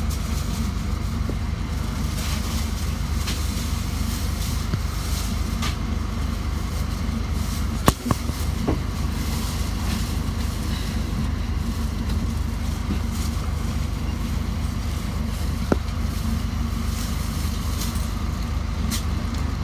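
Bus engine idling steadily, a low even hum, with a sharp knock about eight seconds in and a lighter click later on.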